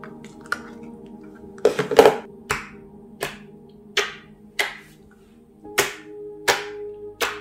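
Clear dish-soap slime being poked and pressed with fingertips, giving a series of sharp wet pops and clicks, about one every half second to second from near two seconds in. Soft background music runs underneath.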